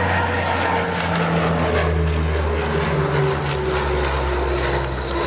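NAMC YS-11 twin-turboprop's Rolls-Royce Dart engines and propellers droning as the aircraft flies past, the engine tone sliding slowly down in pitch.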